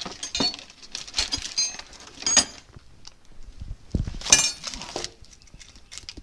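Steel wrenches clinking against each other inside a worn plastic-wrapped bundle as it is lifted and set down, with the wrapping rustling. There is a series of clinks, with two loud ringing ones, about two and four seconds in; the second is the loudest.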